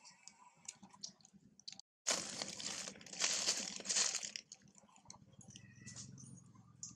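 Faint scattered clicks, then after a brief dropout a loud crackly, crunching rustle lasting about two and a half seconds, followed by a quieter low hum.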